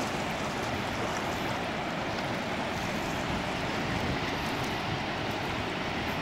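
Steady rush of a fast river flowing over a shallow, rocky bed.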